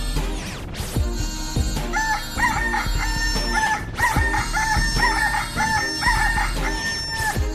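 Dubstep electronic music: a deep bass and beat, joined about two seconds in by a high lead with short upward-bending notes that repeat a figure several times before stopping near the end.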